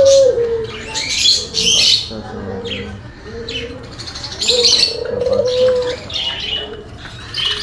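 Aviary of small parrots, budgerigars and lovebirds, chattering with repeated high chirps. A lower wavering call comes and goes underneath, loudest at the start and again about four and a half seconds in.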